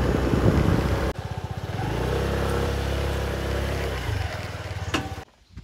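Wind rushing on the microphone while riding, then a small scooter engine running at a steady pitch for a couple of seconds, cutting off abruptly near the end.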